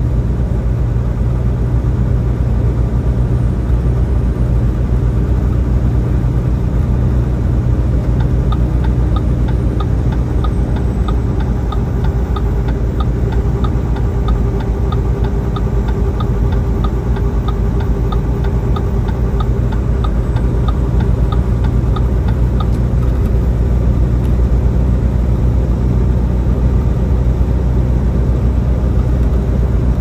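Semi-truck cab interior at highway speed: a steady, loud drone of the diesel engine and road noise. For about fifteen seconds in the middle, a quick, regular light ticking runs over it.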